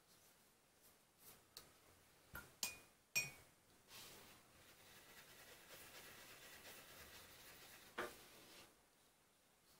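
A paintbrush clinks sharply a few times against a hard container, the loudest clink ringing briefly. Then comes a few seconds of soft scrubbing as the brush works up watercolour from a pan in the palette, and a single light knock.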